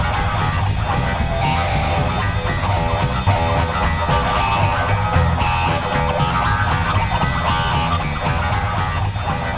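Music with guitar and a steady beat, playing under the end credits.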